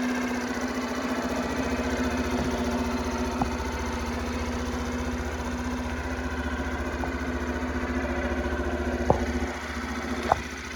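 Suzuki Birdie 50 (BA43A) 50cc motorcycle engine idling steadily, with two sharp clicks near the end.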